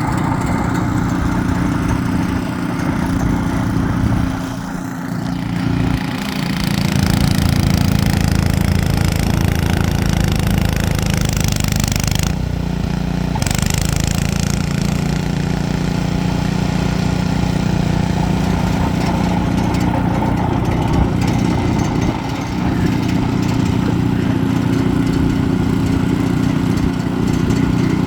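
Ariens 28-inch two-stage snowblower engine running steadily while throwing heavy, wet snow from a snowbank, its level dipping briefly about five seconds in and again near the end.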